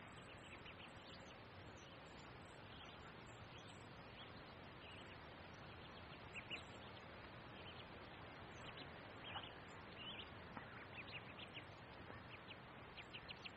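Mallard ducklings peeping: many short, high peeps, coming more often in the second half, over a faint steady background hiss.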